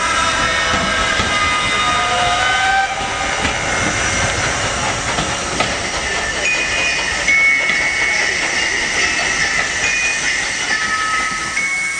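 First-generation British Railways diesel multiple unit standing with its underfloor engines running, under a steady hiss, with held high tones coming and going.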